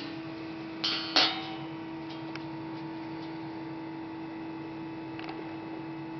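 Steady machine hum, with two sharp metal clinks about a second in, a fraction of a second apart.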